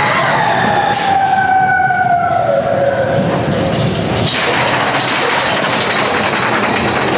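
Big Thunder Mountain Railroad mine-train roller coaster running on its track: a long falling squeal over the first few seconds, with a sharp click about a second in, then a steady rushing rumble from about four seconds.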